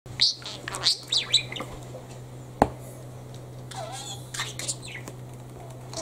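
A lutino budgerigar chirping and warbling in short bursts of high calls, with one sharp tap about halfway through, over a steady low hum.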